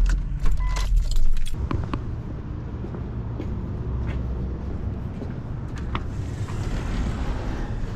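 Keys jangling and sharp clicks over a steady low rumble, with a hiss that grows near the end.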